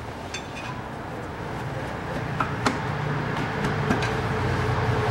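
A few light metallic clicks and taps of a screwdriver working against the torque converter, prying it back off the flywheel. Under them is a low steady hum that grows louder from about two seconds in.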